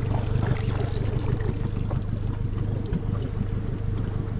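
Honda 90 four-stroke outboard motor idling steadily while it warms up.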